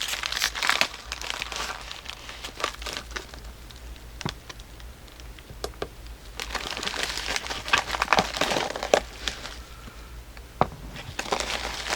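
Packing material crinkling and rustling as a shipping box is unpacked by hand, with scattered sharp clicks and crackles; the handling is busier near the start and again in the second half.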